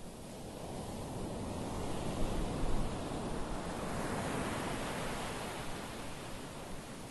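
Ocean surf washing onto a sandy beach: a steady rush of water that swells to a peak about halfway through and eases off.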